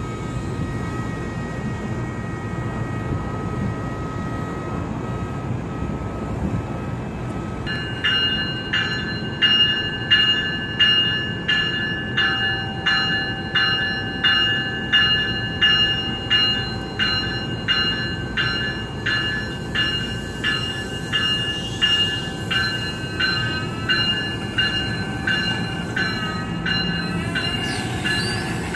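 NJ Transit multilevel passenger cars rolling past with a steady rumble and a faint high squeal from the wheels. About eight seconds in a bell starts ringing steadily, about three strikes every two seconds, and keeps on as the cars pass.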